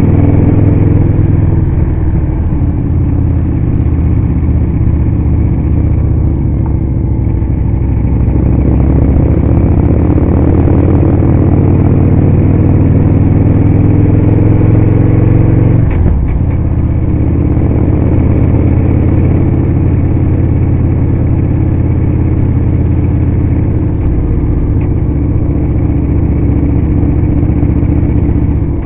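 Motorcycle engine running under way on a winding road. Its pitch rises and falls with the throttle through the curves.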